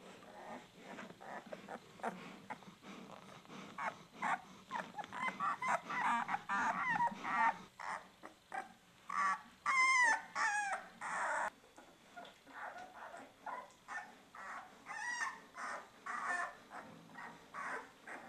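Newborn puppies squeaking and whimpering while they nurse: many short, wavering high-pitched calls. They are busiest through the middle, with the loudest squeals about ten seconds in, and thin out toward the end.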